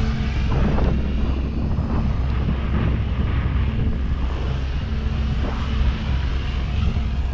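Kraken 580 electric RC helicopter in flight, its rotor and motor sound rising and falling in pitch as it passes by, once about a second in and again near the five-second mark.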